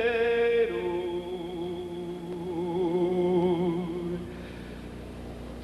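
Male singer holding the song's closing words with a wide vibrato. He sustains one high note, drops to a lower one under a second or so in and holds it over a low accompanying line, and the sound fades out about four seconds in.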